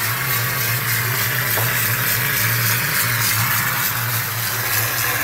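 Plaster-spraying machine running steadily: a constant low mechanical hum under an even hiss.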